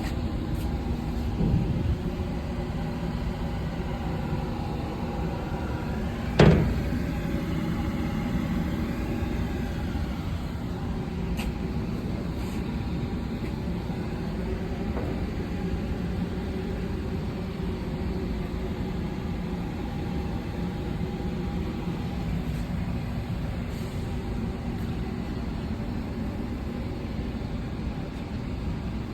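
Bus engine running steadily with a low rumble. A single sharp, loud bang rings out about six seconds in.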